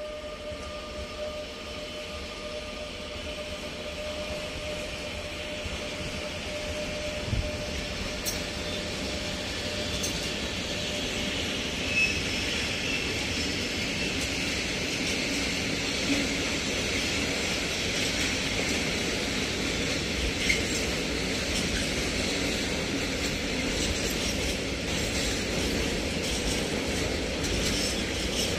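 Freight train of tank wagons, hauled by an E186 electric locomotive, rolling past over points: a steady rumble of wheels on rail that grows louder, with sharp clicks at the rail joints and a faint wheel squeal about halfway through.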